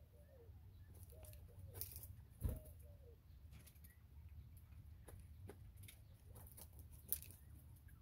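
Northern bobwhite quail giving soft, short, arching calls several times over the first few seconds. Scattered light taps and rustles follow as the birds forage in the straw, with one sharper tap about two and a half seconds in and another near the end.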